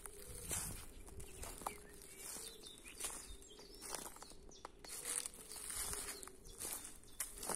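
Footsteps crunching through dry leaf litter at a walking pace, about one step every two-thirds of a second, with faint bird chirps behind them.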